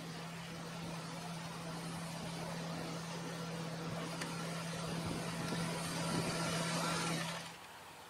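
John Deere W550 combine harvester and a John Deere 6140R tractor with a grain trailer running side by side while the combine unloads oats: a steady machine hum that slowly grows louder, then cuts off abruptly about seven seconds in.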